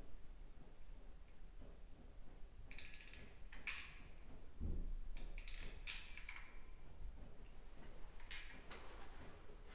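Scraping and clicking of small hard parts being handled and fitted by hand: a few short bursts about three, five to six and eight seconds in, with one low thump near the middle.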